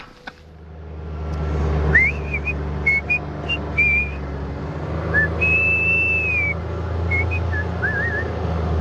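A person whistling a tune in short and held notes, some gliding up or down, over the steady low drone of a Kawasaki utility vehicle's engine. The whistling starts about two seconds in.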